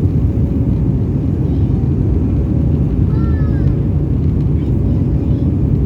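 Steady, loud rumble of an Airbus A320 airliner heard from inside the passenger cabin: engine and airflow noise with a faint steady hum, and faint voices about halfway through.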